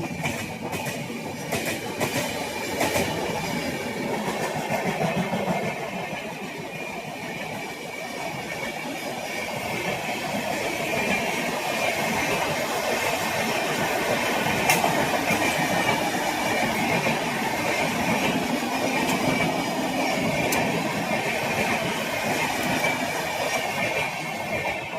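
Indian Railways train passing close by: a steady rumble of wheels on the rails, with clicks over the rail joints in the first few seconds. A faint high wheel squeal comes in the second half.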